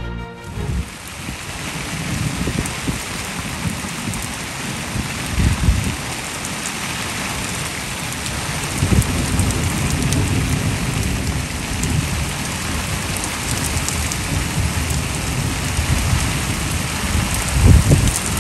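Heavy rain falling steadily, an even hiss, with irregular low rumbles that come and go and are loudest near the end.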